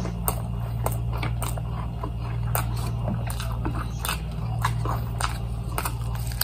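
Close-up chewing of a tuna burrito: irregular wet mouth clicks and smacks several times a second, with a fresh bite near the end. A steady low hum runs underneath.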